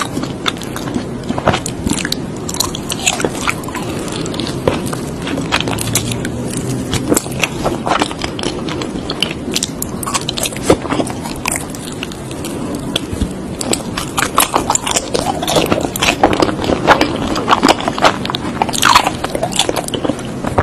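Close-miked mouth sounds of a person biting into and chewing soft mochi ice cream, full of quick wet smacks and clicks.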